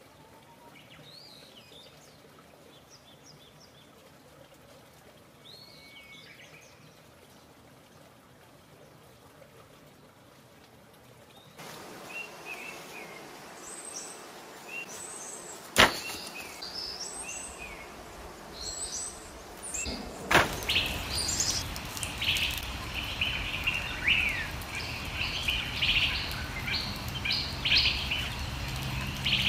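Birds chirping and calling, sparse and faint at first, then louder and busier over a steady background hiss. A single sharp knock about halfway through.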